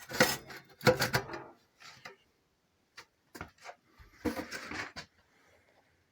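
A series of short knocks and clatters. The loudest two fall in the first second and a half, a few lighter clicks follow, and a denser cluster comes about four seconds in.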